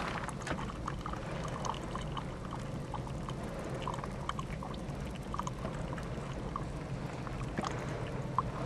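Molten sulphur dripping from the ends of the sulphur-mine condensation pipes, with scattered small ticks and pops, over a steady low rumble.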